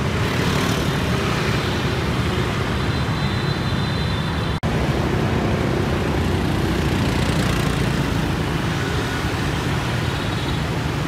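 Busy road traffic: a steady stream of motor scooters and small motorbikes running past with cars among them, a continuous mix of engine and tyre noise. A momentary gap breaks it about four and a half seconds in.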